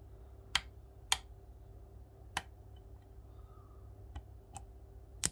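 Sharp metallic clicks of a lock pick working the pins of an Assa Flexcore euro cylinder, about six separate clicks at irregular intervals as the last pin, fitted with an Assa barrel security pin, is picked.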